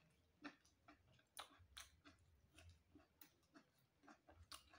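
Near silence with a few faint, scattered clicks and ticks.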